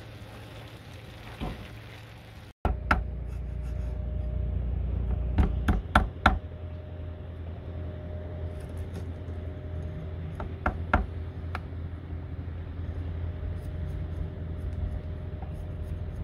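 A steady low motor hum with a few sharp, irregular knocks and clatters over it, some of them in a quick cluster of three. It is preceded by a short stretch of even hiss, like rain, that cuts off suddenly.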